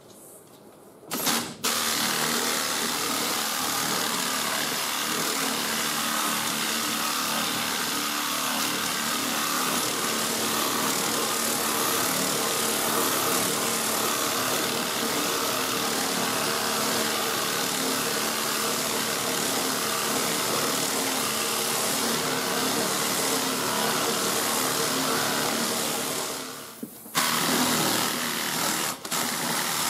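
Pneumatic air file with fresh 40-grit paper sanding body filler, running steadily with a constant hum under the rasp of the paper. It starts about a second in, stops for a moment near the end, and starts again.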